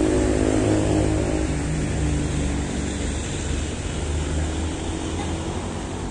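Diesel locomotive engine running as the train rolls slowly in to stop. A steady low rumble carries a pitched engine drone in the first second or two, then the sound eases off gradually.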